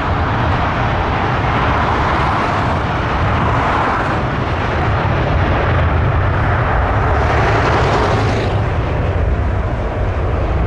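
Jet airliner engines, a loud steady rumble with a hissing rush; the hiss grows brighter for a moment about three-quarters of the way through.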